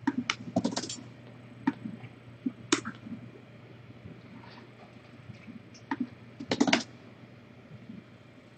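Computer keyboard typing: sharp key clicks in short clusters, a quick flurry at the start, a few single clicks, then another flurry near the end, over a low steady hum.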